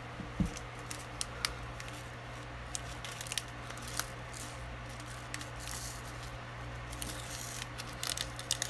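Small, irregular plastic clicks and taps of square diamond-painting drills being picked up and pressed onto the canvas with a drill pen, over a steady low hum.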